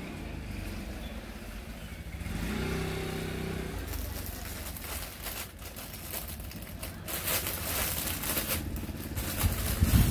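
Clear plastic packaging bag rustling and crinkling as a set of clothes is handled and pulled out of it, ending in a loud thump. A steady low rumble runs underneath.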